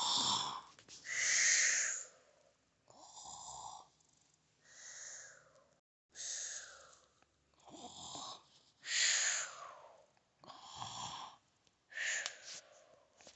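Imitated snoring: a series of about nine breathy snores, one every second or so, some sliding down in pitch.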